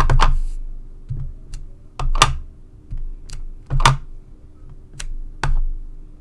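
A clear acrylic stamp block with a photopolymer stamp knocking against a Stampin' Pad ink pad and paper while the stamp is inked. There are four firmer taps spaced a second or two apart, with lighter clicks between them.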